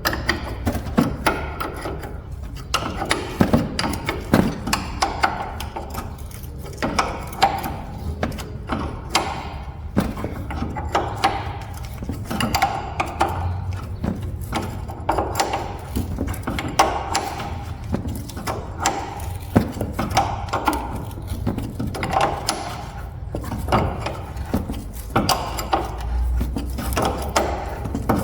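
Hand tools working bolts on a pickup's front suspension: a steady run of irregular metallic clicks, clinks and ratcheting over a low hum.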